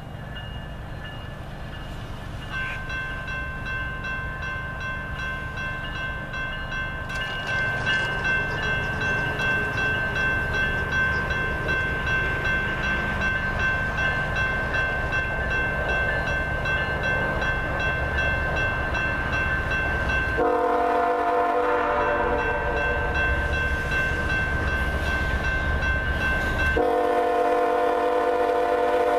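Horn of a GE ES44AC diesel locomotive on an approaching train, sounding two long blasts, the first about twenty seconds in and the second near the end. Under it, the rumble of the train grows louder as it nears, with a steady high ringing in the background.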